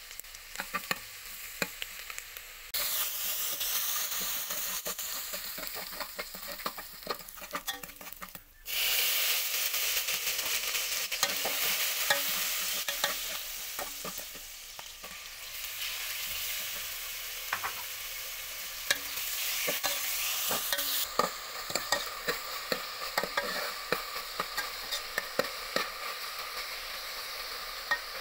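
Minced garlic sizzling in hot oil in a metal pot, stirred with a metal spoon that clicks and scrapes against the pot; later pork slices and red chillies sizzle as they are stir-fried. The sizzle jumps sharply louder about eight seconds in.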